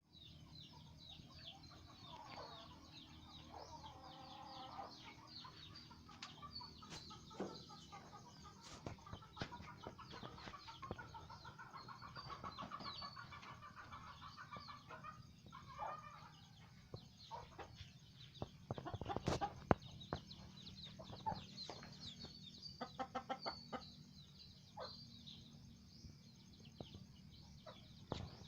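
Chickens clucking and small birds chirping over a low steady hum, with a short run of sharp knocks about two-thirds of the way through.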